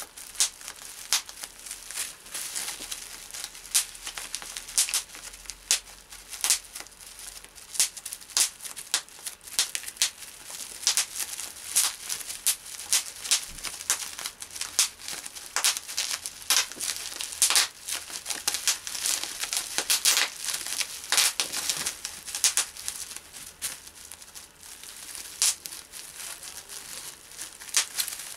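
Bubble wrap squeezed and popped by hand: sharp, irregular pops several times a second over the crinkling of the plastic sheet.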